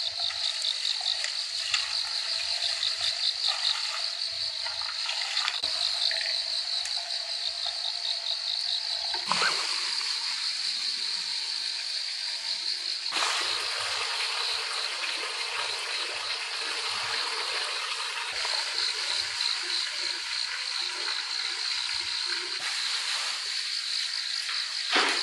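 A steady chorus of crickets and other insects trilling in fast pulses, with frogs croaking beneath it. The chorus changes abruptly twice, near 9 and 13 seconds in.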